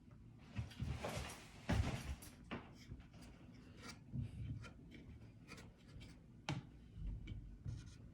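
Faint handling sounds: a stretch of rustling and scraping about a second in, then scattered clicks and light knocks of things being picked up and set down.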